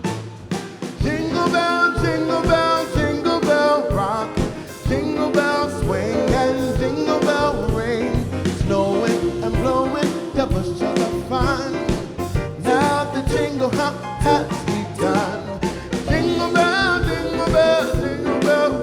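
A song: a singing voice over instruments with a steady beat.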